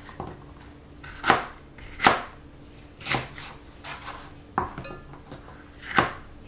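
A chef's knife roughly chopping small sweet peppers on a plastic cutting board: about five separate knife strikes at an uneven pace, a second or so apart.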